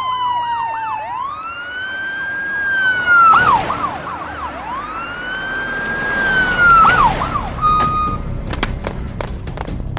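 Police siren wailing, rising to a held tone and falling away twice, with short quick warbles between the wails. Sharp clicks start near the end.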